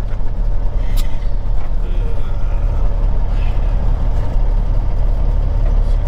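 Semi truck's diesel engine and road noise heard inside the cab while driving, a steady low rumble, with one short click about a second in.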